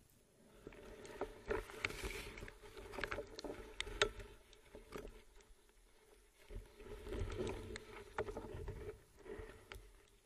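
Muffled water movement of a spearfisher moving underwater, with a low rumble and scattered sharp clicks and knocks, in two spells of a few seconds each.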